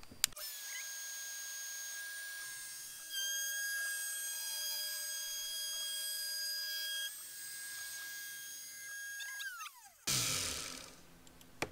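Shapeoko 3XL CNC router's spindle running with a steady high-pitched whine as it makes an accent cut, louder and with more overtones for about four seconds in the middle while the bit cuts. About nine and a half seconds in the pitch falls as the spindle spins down, and a short burst of hiss follows.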